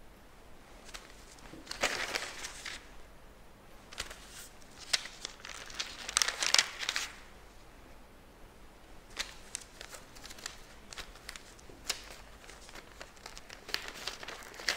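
Sheet of paper pinned over tulle rustling and crinkling as hands turn and smooth it, in several short bursts with small clicks; the loudest burst comes about six to seven seconds in.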